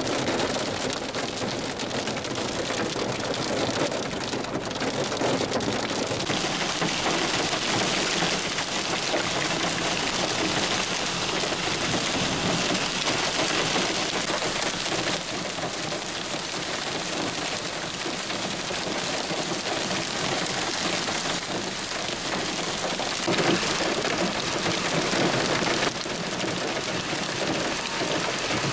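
Heavy rain mixed with hail falling on the ground and splashing into standing water: a steady, dense hiss of the downpour. Its tone shifts abruptly every few seconds.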